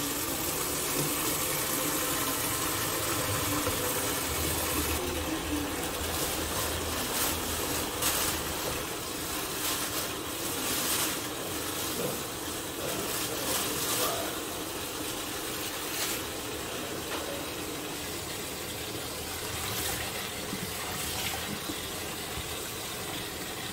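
Kitchen tap running steadily into a plastic basin, with splashing now and then as hands rub and turn cassava leaves in the water.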